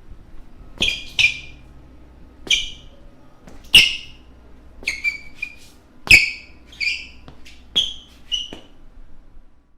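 Basketball shoes squeaking on a floor: about a dozen short, high squeaks at uneven intervals. A few of them come with a low thud of the footfall.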